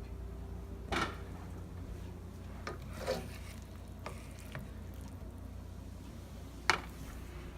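A utensil scraping and clinking against a pan as rice is served out of it: a few short scrapes and knocks, the loudest near the end, over a steady low hum.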